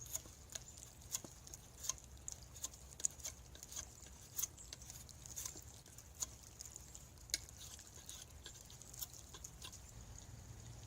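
Hand tools working a wooden axe handle: irregular sharp clicks and light taps, about one or two a second, over a steady faint high hiss.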